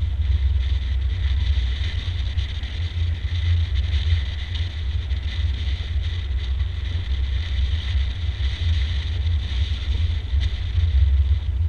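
Wind buffeting the microphone of a camera on the bow of a moving motor cruiser, a fluctuating low rumble over a steady hiss of water along the hull.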